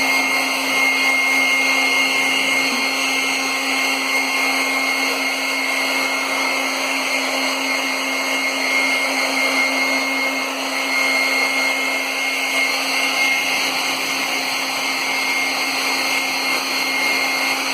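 Handheld hair dryer running steadily: a constant rush of air with a steady hum and a thin high whine that never changes.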